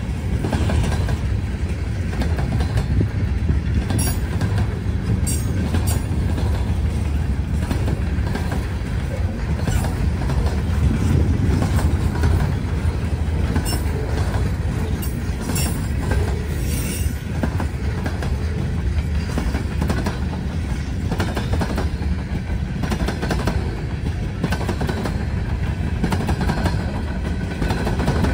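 Norfolk Southern freight train rolling past: a steady low rumble of railcars with wheels clicking over the rail joints, and a few short high squeaks from the wheels.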